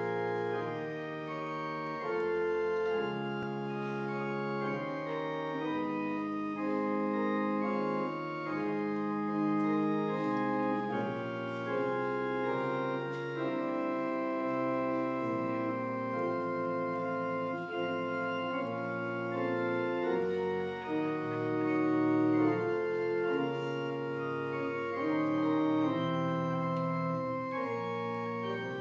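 Organ playing a slow piece in held chords that change every second or two.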